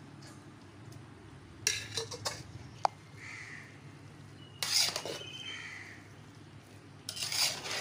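Metal spoon stirring boiled rice into vegetables in a steel pot. Three short bursts of scraping against the pot, with one sharp clink about three seconds in.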